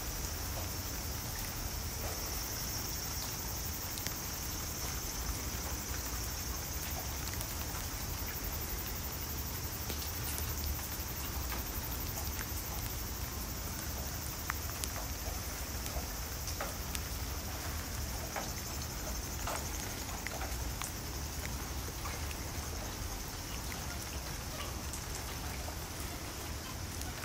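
Steady outdoor background noise: a constant high hiss with a low rumble beneath and scattered faint ticks, without a clear call or distinct sound from any animal.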